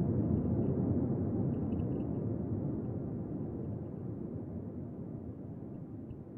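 A dense, deep rushing rumble with no clear pitch that slowly fades out, with faint scattered ticks high above it.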